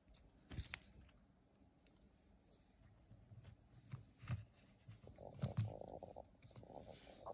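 Faint handling of a stainless-steel watch bracelet: scattered light clicks and clinks of metal links with soft rubbing, the sharpest clicks about half a second in and around five and a half seconds.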